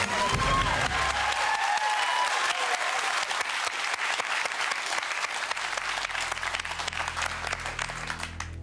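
Studio audience applauding, dense clapping with a few cheering voices in the first couple of seconds, thinning a little toward the end.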